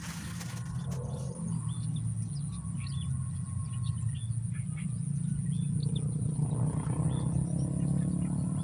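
A steady low droning of animal calls, with short high chirps scattered over it and a thin steady high tone.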